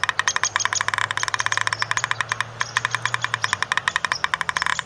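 Woodpecker hammering on wood: a long run of rapid, even knocks, more than ten a second, with one short pause about two and a half seconds in.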